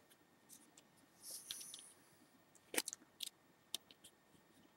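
Trading cards being handled and slid against each other: a soft swish of card on card about a second in, then three light clicks.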